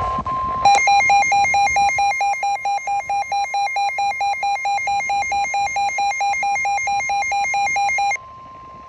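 Midland WR120 weather radio sounding its alert: a rapid electronic beeping, about five beeps a second, over the steady 1050 Hz NOAA Weather Radio warning alarm tone. The beeping cuts off suddenly near the end, leaving the steady tone on its own; it signals that a new severe thunderstorm warning is coming in.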